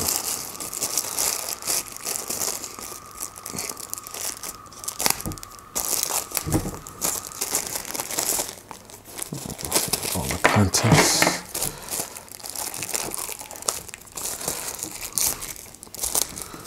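Plastic packaging crinkling and rustling as cables are unwrapped by hand, in irregular handling noises with the loudest crinkling about two-thirds of the way through.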